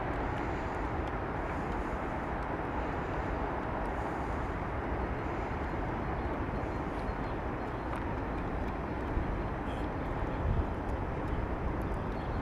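Steady outdoor background rumble with no distinct events, a few small bumps in level about three quarters of the way through.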